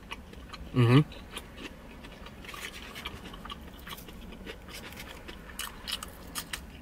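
A person chewing food with mouth sounds close to the microphone: a short hummed "mm" about a second in, then a run of small clicks and crunches of chewing.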